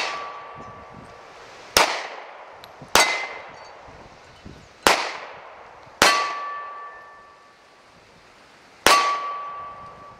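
Five shots from a Beretta Nano 9mm pistol, one to three seconds apart, with steel plate targets ringing out after several of them.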